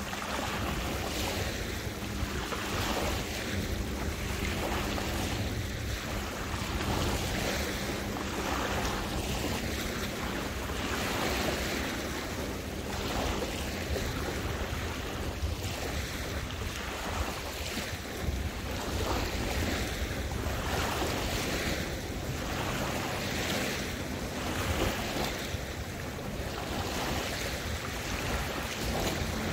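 Waterway water lapping and splashing in soft surges about once a second, with wind buffeting the microphone as a low rumble.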